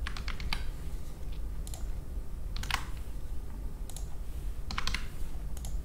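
Computer keyboard typing and clicks: scattered single keystrokes and short runs as numbers are typed in, over a low steady hum.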